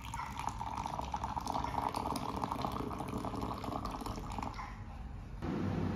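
Coffee poured from an aluminium moka pot into a ceramic cup, a steady splashing stream filling the cup for about five seconds. Then it cuts off and gives way to a steady low hum.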